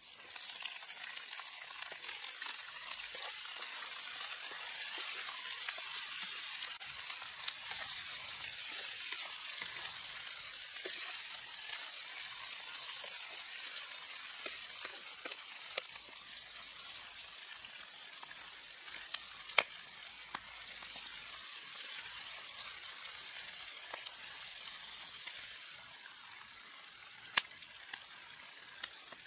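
Hot oil sizzling steadily as lemongrass and red chillies fry in it, with a few sharp pops. The sizzle eases a little near the end.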